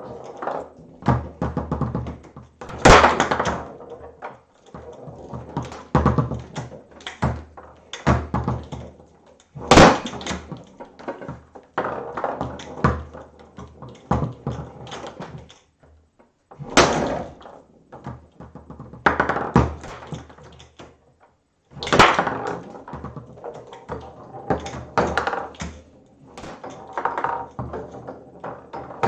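Foosball table in play: a quick, irregular run of clicks and knocks as the plastic men tap and pass the ball and the rods shift, with a much louder bang four times, about every six or seven seconds.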